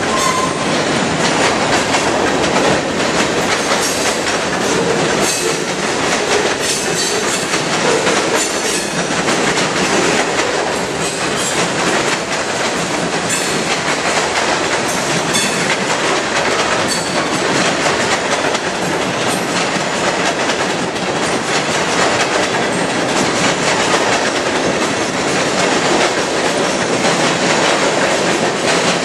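A mixed freight train's cars rolling steadily past at close range: the loud, even noise of steel wheels on rail, with repeated clacks as the wheels cross the rail joints.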